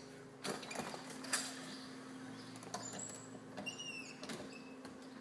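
Faint clicks and knocks from a door and its hydraulic door closer as the door is worked, with a brief high squeak about four seconds in, over a steady low hum.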